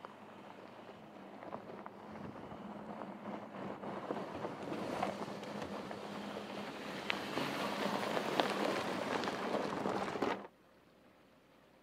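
Porsche Cayenne SUV crawling over a rocky gravel trail: tyres crunching and crackling on loose stones, with a low steady engine hum, growing louder as it comes close. The sound cuts off suddenly near the end.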